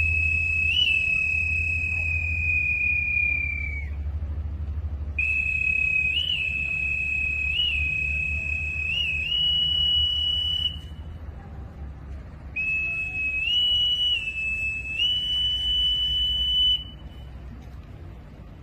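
A whistle blown in three long, steady blasts, each with small quick upward flicks in pitch and a slight step up near its end. A low rumble runs underneath.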